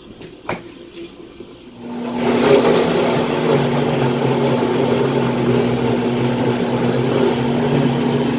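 A click, then a commercial countertop blender motor starts about two seconds in and runs steadily with a constant hum. It is blending a liquid mix of aloe vera gel, okra water, rice water and olive oil.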